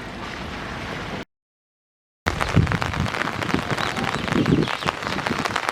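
Heavy rain pattering on a surface, a dense rattle of drops that starts abruptly about two seconds in after a second of dead silence; before the gap there is only a steady outdoor hiss.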